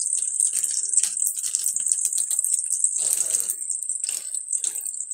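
Curry leaves and dried red chillies sizzling in hot oil with mustard seeds in a kadai: a steady high hiss full of quick crackles and pops.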